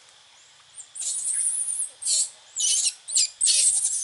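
Baby monkeys squealing: a string of shrill, high-pitched cries in short bursts, starting about a second in.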